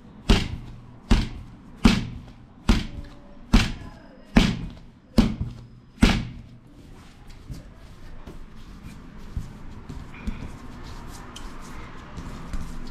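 A ball of yeast pizza dough is slapped down hard onto a tabletop eight times, about once every 0.8 seconds, while it is kneaded after rising. About six seconds in the slapping stops, and softer rubbing and pressing of the dough by hand follows.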